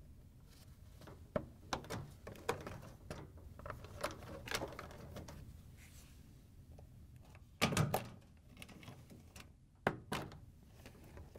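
Hard plastic clicks and knocks as wiring-harness connector clips are squeezed free of a washer control board's plastic housing with small pliers and the housing is handled. The clicks come in an irregular scatter, with a louder clatter a bit past the middle and a sharp knock near the end.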